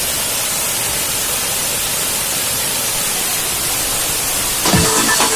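Waterfall rushing, a loud, steady, even roar of falling water. Near the end, electronic music with heavy drum hits comes in over it.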